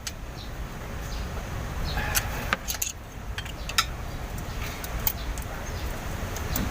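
Irregular metallic clicks and clinks of hand tools working on the valve rocker arms of an Isuzu 12PE diesel engine while its valve clearance is being set, over a low steady rumble.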